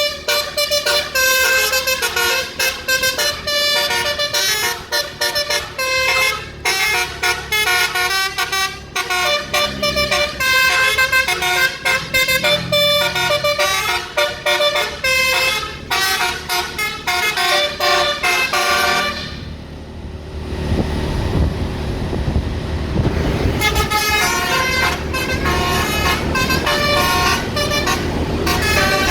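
A bus's multi-tone 'basuri' telolet horn playing a fast tune of many short tooting notes over the low rumble of the engine. The horn breaks off for about four seconds past the middle, leaving only the rumble, then starts its tune again.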